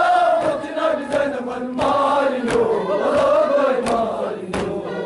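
A crowd of men and boys chanting a Kashmiri noha (Muharram lament) in unison, one long wavering melodic line. It is cut by sharp slaps at a rough steady beat, about one a second, typical of hands beating chests in matam.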